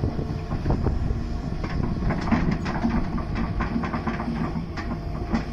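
Hydraulic excavator running, a steady low engine rumble with repeated metallic clanks and clicks.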